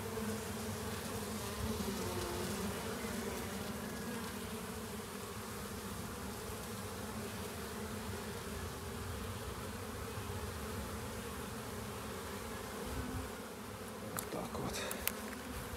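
Many honey bees flying around a hive entrance: a steady buzzing hum. A few faint clicks near the end.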